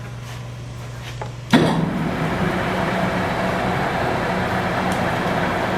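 A 1989 King Rich 18x40 gap-bed lathe with a 7.5 hp three-phase motor: a steady low hum, then about a second and a half in a sharp knock as the spindle is started, and the machine settles into a steady, louder running sound.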